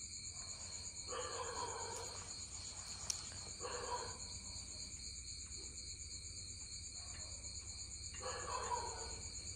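Insects chirring steadily in high, pulsing tones. Three faint distant calls rise above them, about one, four and eight seconds in.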